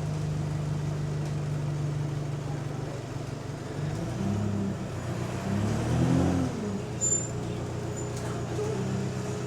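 Bus diesel engine running steadily, then revving up and easing off twice around the middle, loudest just past halfway, before settling back to a steady run. The bus has an exhaust leak.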